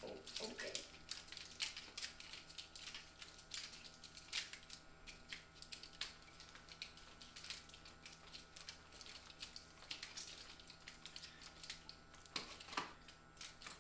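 Faint, irregular clicks and light taps of revolvers being spun in the hands and twirled into leather belt holsters, over a faint steady hum.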